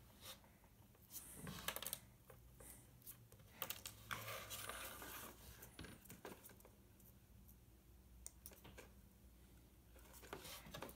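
Faint clicks, scrapes and rustles of a handmade cardboard and craft-foam action figure being handled, its parts folded and repositioned, with a longer rustling stretch about four seconds in.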